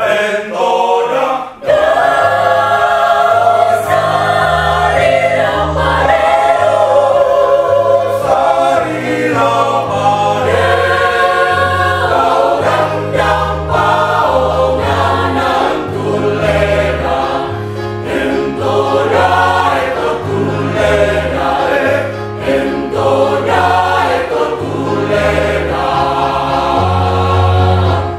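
Mixed choir of women's and men's voices singing in parts, with sustained low notes under the harmony. There are two brief breaks between phrases in the first two seconds.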